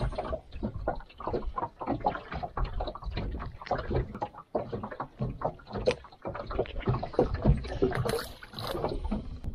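Irregular rustling and knocking of a cloth towel being handled right against the microphone while a small black bream is gripped for unhooking, over a low rumble.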